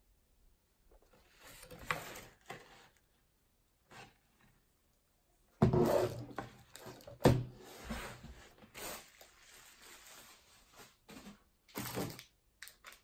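Cardboard box and packaging being handled: scattered rustling and scraping, with a sudden thump about six seconds in and another about a second and a half later.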